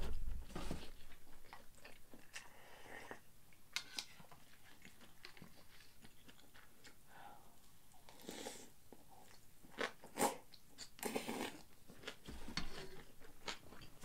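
Close-up mouth sounds of someone eating fried rice: chewing with many small wet clicks. About eight seconds in come a few louder slurps from a bowl held to the mouth.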